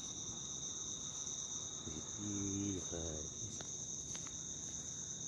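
Crickets chirping in a continuous high trill, with a brief low hum about two seconds in.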